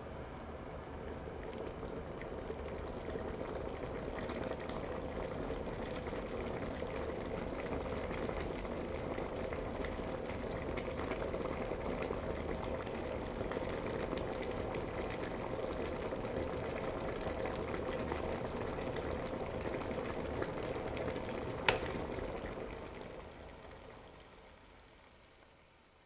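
Electric kettle boiling water, a steady bubbling hiss that builds slowly. A single sharp click comes about three-quarters of the way through, the kettle switching itself off at the boil, and the boiling then dies away.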